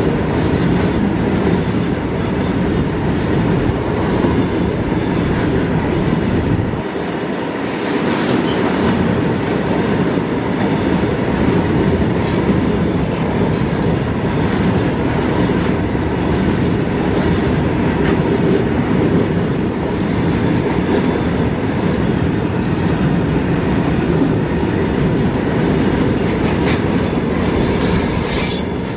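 Tank wagons of a long freight train rolling past close by: a loud, steady rumble and rattle of steel wheels on the rails, with brief sharper high sounds about twelve seconds in and again near the end.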